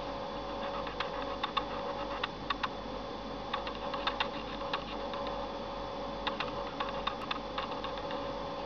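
Small plastic button clicks, pressed irregularly in short quick runs, over a steady electrical hum with a faint high whine.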